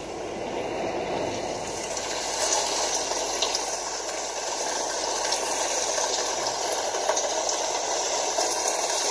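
A steady rushing noise effect from the projection-mapping show's sound system, swelling in during the first second and then holding even, with no tune or beat.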